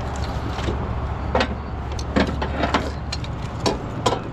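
Sharp metal clinks and knocks of a tow chain hook and strap being handled at a wrecked car's crushed front end, several separate strikes, over the steady low drone of a running engine.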